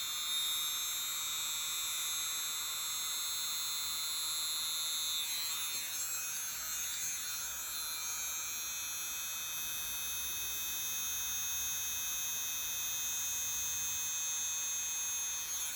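Miniature hair dryer running steadily with a high-pitched small-motor whine, blowing only a weak stream of air.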